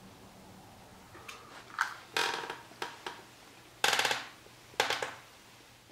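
Handling noises from a mule deer skull with its antlers: four or five sharp knocks and scrapes, each dying away within about half a second, as it is moved about and set on a cardboard box.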